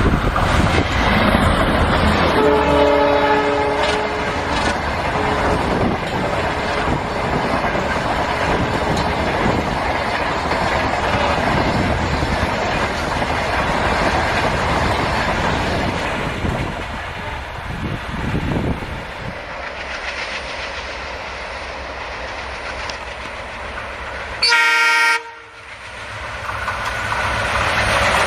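Passing train on Indian Railways, the wheels clattering steadily over the rail joints. Its air horn sounds for about a second and a half near the start, and a short, sharp horn note comes near the end.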